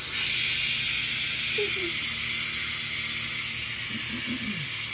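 Air hissing out of a motorcycle tire's valve stem as the valve core is unscrewed, starting suddenly and holding steady: the tire deflating for removal.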